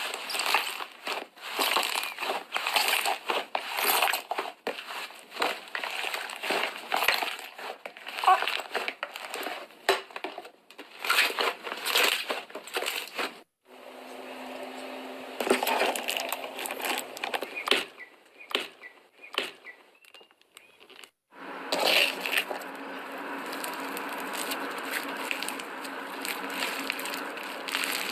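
Slime being squished and poked by hand: a dense run of wet crackling clicks and pops. The sound is cut into separate clips, dropping out briefly about halfway through and again about three quarters of the way in.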